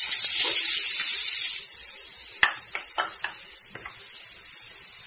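Grated vegetables hitting hot oil in a nonstick frying pan: a loud sizzle that starts suddenly and eases after about a second and a half into a quieter sizzle. A few sharp knocks against the pan follow as the vegetables are tipped in and stirred.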